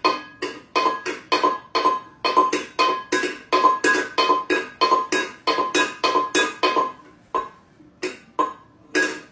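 Small stainless-steel bowl struck over and over by a cat's paw on a tiled floor. Rapid metallic clanks, two to three a second, each ringing briefly at the same pitch, with a short lull about three-quarters of the way through.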